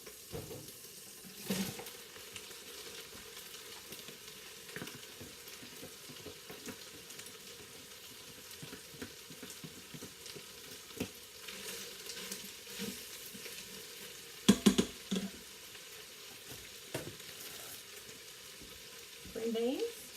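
Cubed chicken sizzling as it browns in the metal inner pot of a Farberware pressure cooker, with a utensil stirring and small knocks against the pot. A short burst of louder clatter comes about three quarters of the way through.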